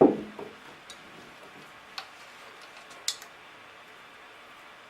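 Sharp clicks from a paintball remote line's push-button quick-disconnect coupling being worked: a short loud knock at the very start, then three clicks about a second apart, the third the loudest.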